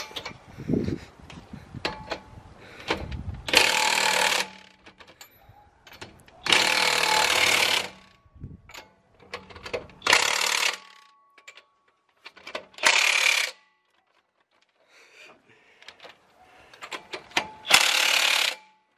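Pneumatic impact wrench running lug nuts onto a truck wheel as it is mounted, in five bursts of about a second each, with light clinks and knocks between them.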